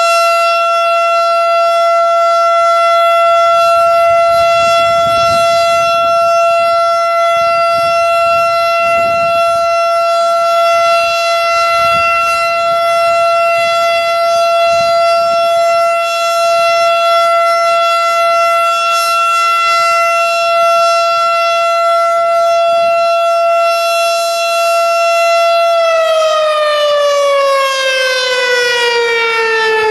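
Federal Signal STH-10 outdoor warning siren sounding its steady Alert tone, loud and close, a single held pitch rich in overtones. About four seconds before the end the pitch begins to fall steadily.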